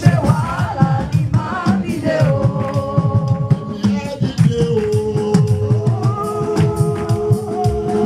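Gospel music: singing over a band with drums and bass, a voice holding one long note through the second half.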